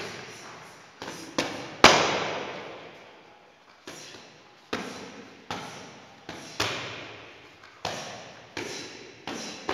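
Boxing gloves striking focus mitts in a pad drill: about a dozen sharp smacks, singly and in quick pairs, each ringing on in an echoing room. The hardest punch lands about two seconds in.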